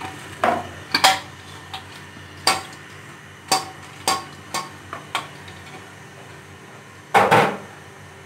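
Sharp knocks and clinks of utensils against a pan as boiled pasta is tipped into white sauce and worked in with a slotted spatula: about eight separate strikes, with a louder, longer clatter near the end.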